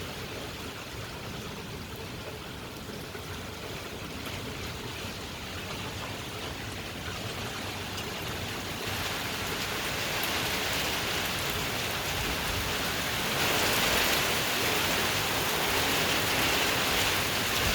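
Heavy squall rain from a hurricane feeder band pouring down steadily. It grows heavier about halfway through and heavier again toward the end.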